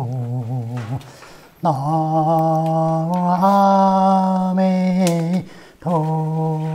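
A Buddhist chant sung slowly by a voice holding long, steady notes, with short breaks for breath about a second in and again near the end.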